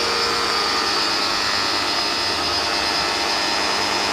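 Koblenz HL 145 V electric pressure washer (1400 PSI) running steadily, its motor and pump giving a steady whine with a hiss.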